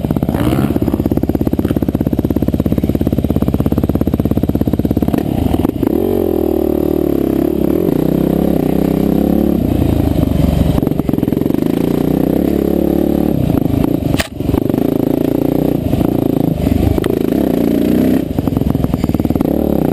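Trail dirt bike engine running hard while ridden, its pitch rising and falling as the throttle is opened and closed, with one brief drop in level about fourteen seconds in.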